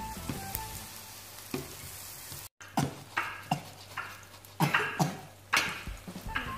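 Batter-coated banana pieces (pisang goreng) sizzling in hot oil in a frying pan. About two and a half seconds in the sound cuts, and then come several sharp clinks and knocks of metal spoons and a wire skimmer against the steel batter bowl and the pan.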